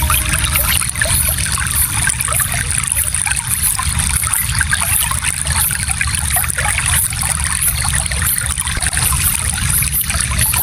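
Small stream flowing steadily over stones, a continuous trickling and babbling of water.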